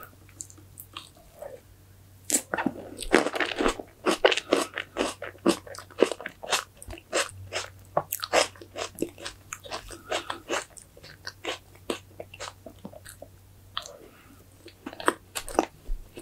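Close-miked chewing of a mouthful of strawberry fresh cream cake with a green grape: many quick crackles and clicks, starting about two seconds in, easing off briefly near the end and then picking up again.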